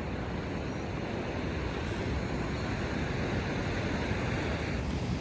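Ocean surf washing steadily onto a sandy beach, with wind noise on the microphone.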